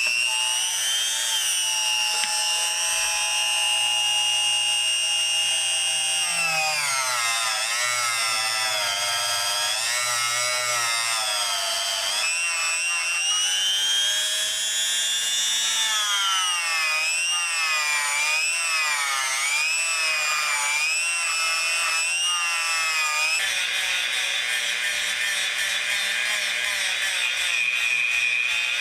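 Small high-speed power tool running on metal, its whine sagging and recovering in pitch again and again as it is pressed into the work and eased off. From about three-quarters of the way through, a steadier, hissier tone takes over.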